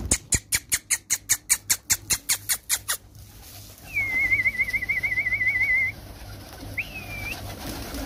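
A fast, even run of about eighteen sharp strokes over three seconds, then a trilling whistle lasting about two seconds and a short rising-then-falling whistle: a pigeon keeper calling his flock down to be fed.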